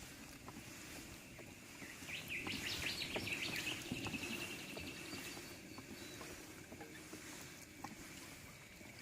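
Water noise from a kayak moving on a river, with a bird's rapid chattering call about two seconds in that trails off a couple of seconds later, over a steady high thin tone.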